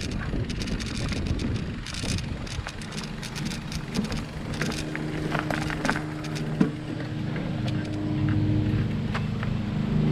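Bike riding along a dirt trail: tyres rolling and crunching over the ground, with frequent sharp snaps and clicks. From about halfway a steady pitched hum comes in and grows louder near the end.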